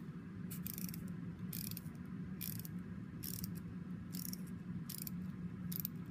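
Clockwork motor of a wind-up toy duck running: a steady low whirr of the gears with a brief scratchy burst repeating about once a second.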